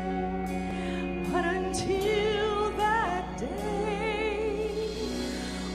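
A woman singing a worship song into a microphone, with long held notes sung with vibrato over sustained instrumental accompaniment.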